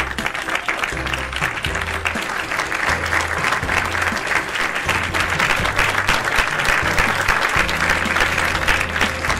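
Applause, a dense patter of clapping, over background music with a bass line.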